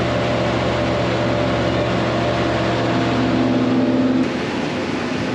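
Wood planer running loud and steady, a machine hum under a dense noise of cutting, with a stronger tone building about three seconds in and the level dropping just after four seconds as the load on the machine changes.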